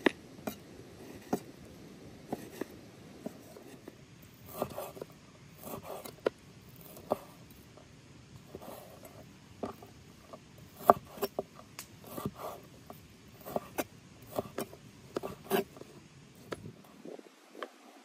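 Knife cutting raw meat on a wooden cutting board: irregular knocks of the blade against the board, with short scraping slices in between.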